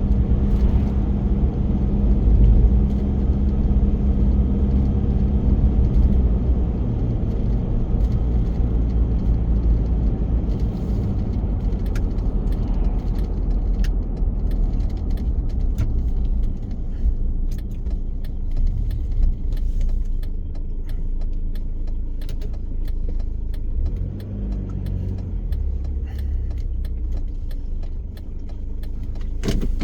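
Car driving, heard from inside the cabin: a steady low engine and road rumble with light rattling clicks, easing a little in the second half.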